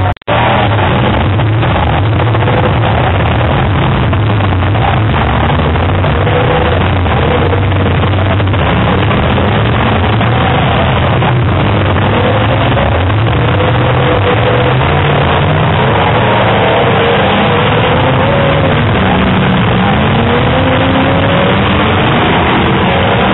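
Full-size demolition derby cars' engines running and revving together in a loud, continuous din, their pitch rising and falling.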